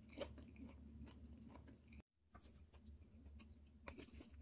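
Near silence: faint scattered clicks and crunch-like sounds over a low steady hum, with a brief total dropout about two seconds in.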